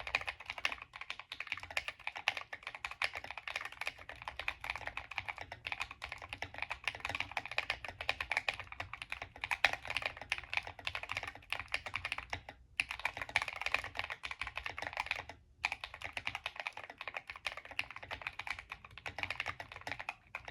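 Steady fast typing on a GMMK Compact mechanical keyboard with lubed KTT Kang White V3 linear switches, PE foam, tape mod and ABS keycaps: a dense run of key clicks with two brief pauses about 12 and 15 seconds in.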